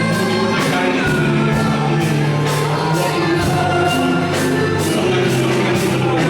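Gospel music with singing, over held bass notes and a steady drum beat of about two strokes a second.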